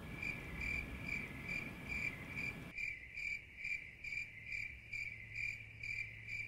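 Crickets chirping, a high chirp repeating about two and a half times a second: the stock 'crickets' sound effect marking an awkward silence after a flat joke.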